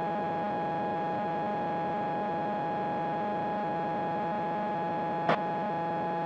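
Steady drone of a PiperSport's Rotax 912 engine and propeller at climb power, heard through the cockpit intercom with a steady high-pitched tone over it. A short click about five seconds in.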